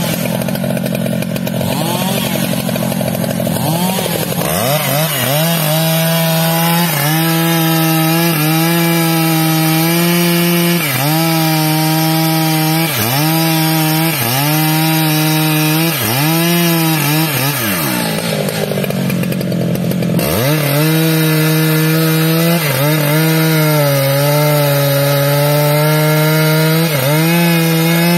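STIHL MS 881 chainsaw's 121.6 cc two-stroke engine at full throttle, sawing into a teak trunk. In the first few seconds it runs at a higher pitch, then settles lower as the chain bites, and its pitch dips and recovers about once a second under the load of the cut.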